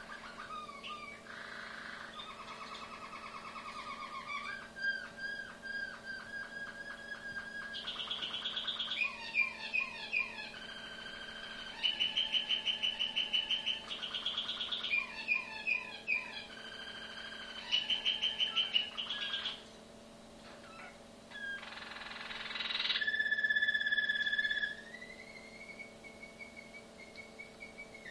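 Malinois (Waterslager) song canary singing a run of tours that change every two or three seconds: fast pulsed rolls and bubbling, warbled phrases. Near the end comes a loud sustained roll, then a long held whistle.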